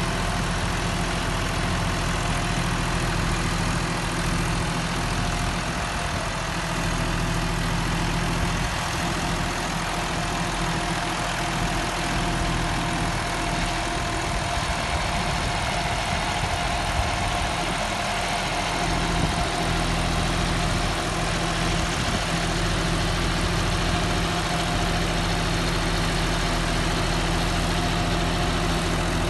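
John Deere 5310's three-cylinder diesel engine running steadily under load as the tractor pulls an 11-tine cultivator through the soil with the implement lowered fully.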